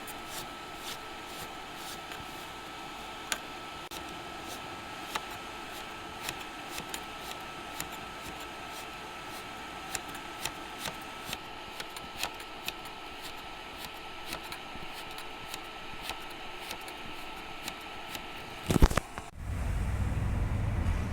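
Steady hiss with a faint steady whistle and irregular crackling clicks. Near the end comes a loud sharp crack, then a low rumble.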